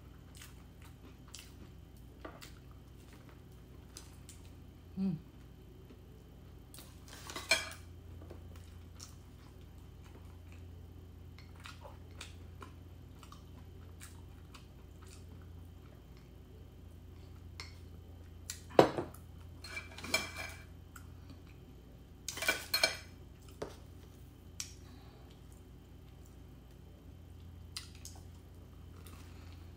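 Scattered clinks and taps of a metal table knife against a ceramic bowl and plate as a scone is spread and cut, with a few louder clinks a little past halfway.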